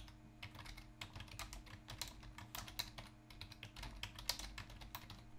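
Typing on a computer keyboard: a faint, quick, irregular run of keystrokes, with a low steady hum underneath.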